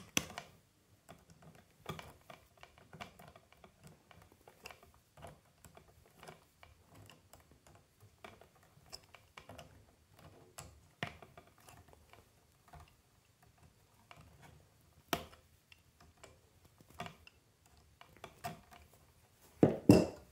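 Lineman's pliers twisting the bare ends of three 14-gauge solid copper wires together: a long run of faint, irregular small clicks and creaks of steel jaws working on the wire, with a few sharper clicks and a louder knock near the end.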